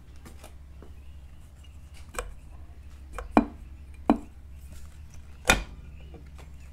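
A few sharp knocks and clunks as the valve cover of a Royal Enfield Hunter 350's single-cylinder engine is worked loose and wiggled against the cylinder head; the loudest knock comes about five and a half seconds in. A steady low hum runs underneath.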